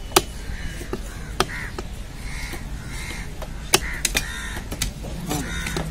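A heavy chopper knife striking through fish onto a wooden chopping stump: a series of sharp chops, the loudest just after the start and a quick cluster about four seconds in. Crows caw repeatedly in the background.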